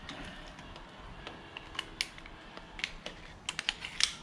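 Irregular light clicks and taps of handlebar parts being handled and fitted, a few at first and then a quick cluster near the end.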